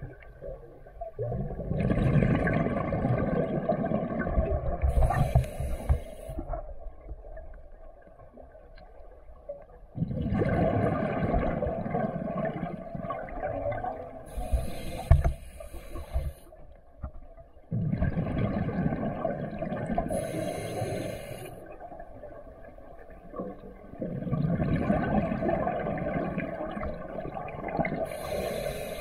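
A scuba diver breathing through a regulator, heard underwater, for about four breath cycles. Each cycle has a rumbling, gurgling stretch of exhaust bubbles lasting several seconds and a short high hiss from the regulator.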